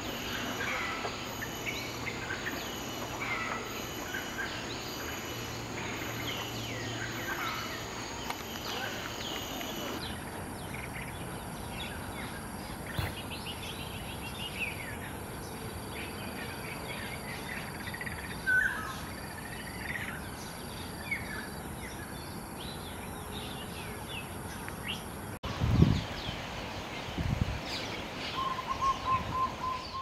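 Wild birds chirping and calling: many short, varied calls from several birds over a faint steady background, in three recordings joined by abrupt cuts. Near the end come a few low thumps and then a quick run of about eight even notes.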